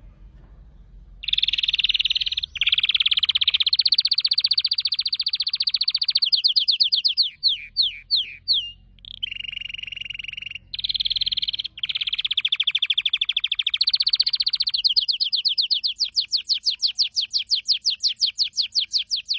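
Domestic canary singing, starting about a second in: long rapid trills and rolls, a few quick down-slurred notes about halfway through, and a fast, evenly pulsed trill near the end.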